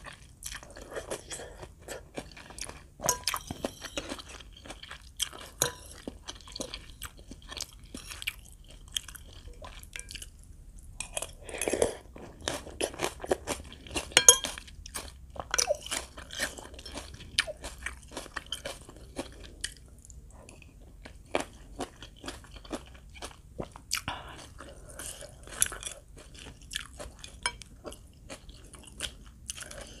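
Close-miked eating sounds: slurping khanom jeen rice noodles in curry and chewing, with many irregular, sharp crunchy clicks from the mouth.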